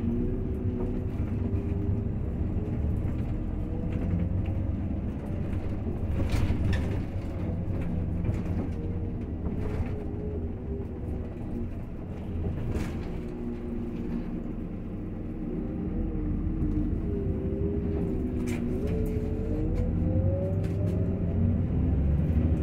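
Cabin noise inside a 2007 Irisbus Crossway 12 m diesel bus under way: the engine and drivetrain run steadily, with a whine that glides up and down in pitch. A few short clicks and rattles come from the body.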